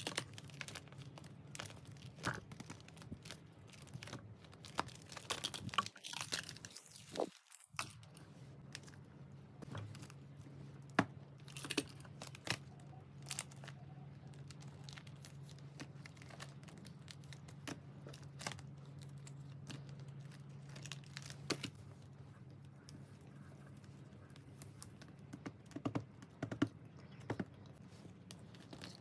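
Faint tearing and crinkling of album packaging being unwrapped and handled, with scattered clicks and taps. The rustling is busiest in the first several seconds and sparser after, over a low steady hum in the middle stretch.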